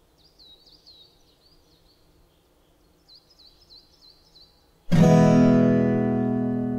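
Faint bird chirps in quick runs of short downward-sweeping notes, then, about five seconds in, a single strummed acoustic guitar chord that rings out loudly and slowly fades.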